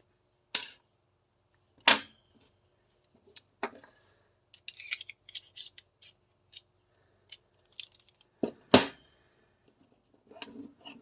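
Parts of an airsoft 2011 pistol clicking and clacking as they are handled and fitted. There is a sharp clack about half a second in, another near two seconds, and a double knock near nine seconds, with lighter clicks between.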